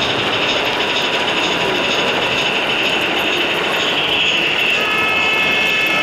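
A model steam locomotive pulling freight wagons running along a layout, giving a steady whirring hiss. Several steady high tones join in near the end.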